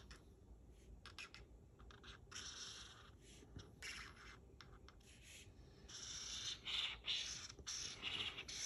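Black Sharpie marker drawing on brown cardboard: faint scratchy strokes in short runs with pauses between them, a little louder in the last few seconds.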